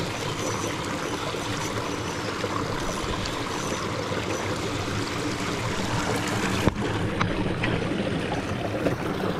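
Shallow rocky creek running steadily over and between boulders. A single sharp click comes about two-thirds of the way through.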